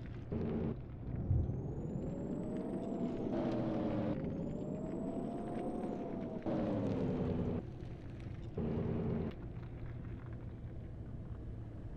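Off-road vehicle's engine revving up and easing off several times, over a steady low hum. A thin high whine rises along with the revs twice in the first half.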